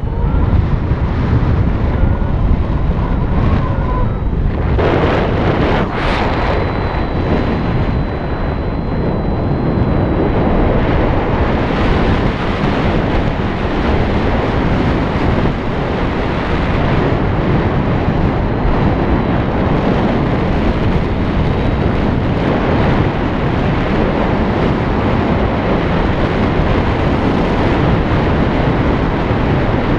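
Steady, loud wind noise buffeting the microphone.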